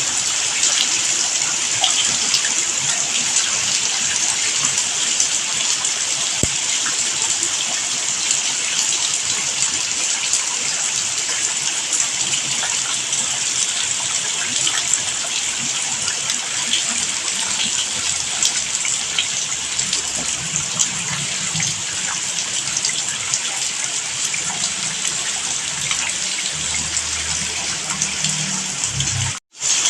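Steady, heavy rain falling, an even hiss with no birdsong over it. It cuts out for a moment just before the end.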